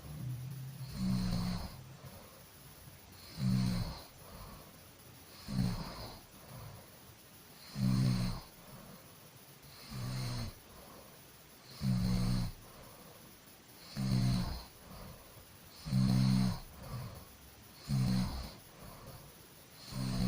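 A person snoring in a steady rhythm, one short, low, buzzing snore about every two seconds, with quieter breathing in between.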